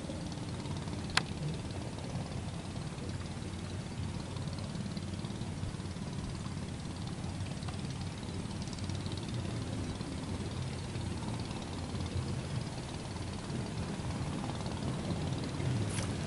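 A steady low rumble, with a sharp click about a second in. Near the end comes a short splash as the float and line are yanked out of the water on the strike.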